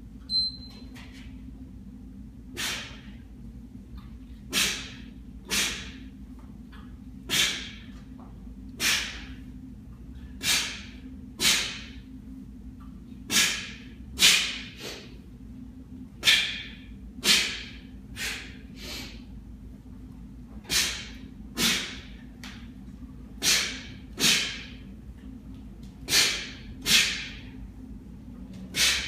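Sharp, hissing exhalations of a man doing kettlebell snatches, mostly in pairs about a second apart and repeating every few seconds with the reps. An interval timer beeps briefly just after the start, and a steady low hum runs underneath.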